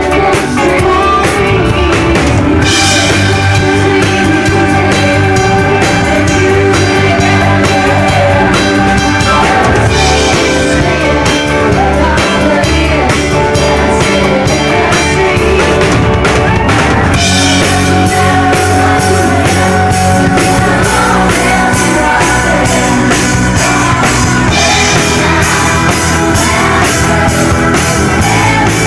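Live band playing a loud, steady rock-pop number on drum kit, with women singing lead into microphones.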